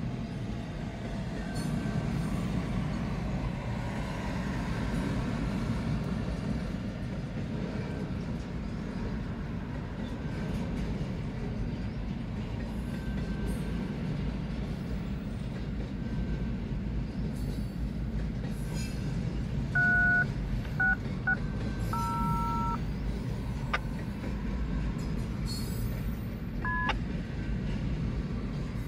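A BNSF double-stack intermodal freight train rolling past with a steady low rumble of wheels on rail. About two-thirds through come a few short electronic beeps, each a pair of steady tones like a phone keypad, and one more near the end.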